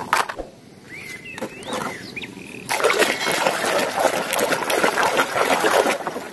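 Hands sloshing and scrubbing plastic toys in a tub of foamy soapy water, a busy splashing and swishing that starts about three seconds in. Before that, plastic toys clatter briefly and a bird chirps a few times.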